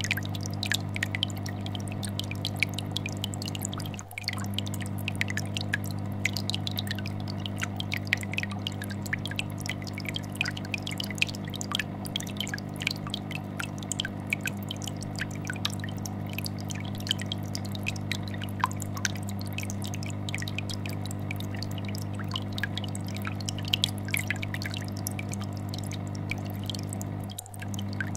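Aquarium air bubbler sending up a stream of small popping bubbles over the steady low hum of a fish tank filter vibrating. The sound drops out briefly about four seconds in and again near the end.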